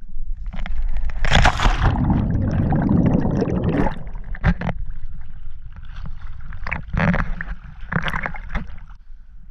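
Water sloshing and gurgling close to the microphone, with a big surge of splashing early on and scattered knocks and splashes after it, over a steady low rumble.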